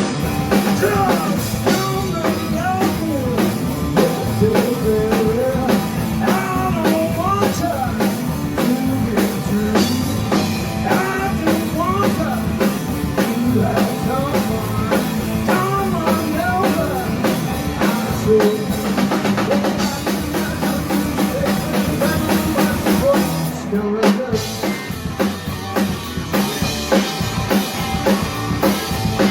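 Blues rock band playing a song: a steady drum-kit beat under a bending melodic line, with a brief break in the mix near the end.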